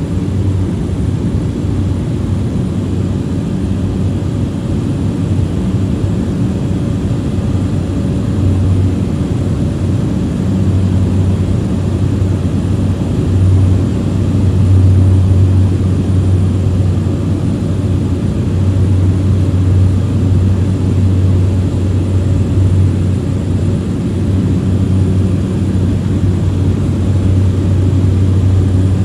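Cessna's engine and propeller heard from inside the cabin at takeoff power during the climb-out: a loud, steady drone with a low hum.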